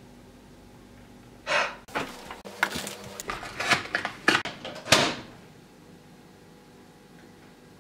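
Handling noise from a plastic-packed ready-meal tray and a microwave: a swish, then a quick run of clicks, knocks and crinkles lasting about three and a half seconds.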